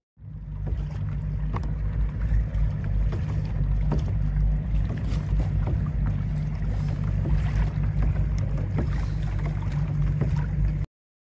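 Wind buffeting the microphone on a moving pedal kayak, a steady deep rumble, with small splashes and water lapping at the hull scattered through it. It cuts off suddenly near the end.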